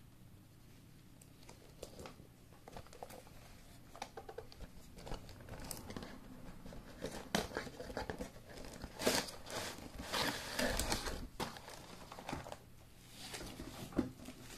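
A toy train's cardboard gift box and its plastic-wrapped inner tray being handled and opened: scattered rustling, crinkling and cardboard scrapes and clicks, busiest in the middle.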